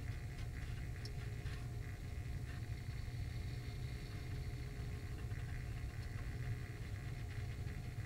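Bagless upright vacuum cleaner running steadily with a low hum as strips of cut paper whirl in its clear dust bin, with a few faint ticks between about one and two and a half seconds in.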